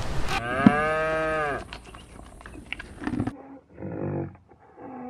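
A long, low, moo-like animal call with many harmonics. The pitch arches up and falls again over about a second. After a cut, three short calls follow near the end.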